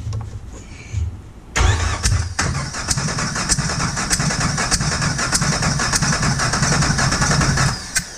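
Starter motor cranking a Jeep Wrangler's 4.0-litre inline-six over for about six seconds without it firing, with a compression gauge fitted to the third cylinder's plug hole during a compression test. The cranking starts suddenly about a second and a half in, runs with an even chug, and stops shortly before the end.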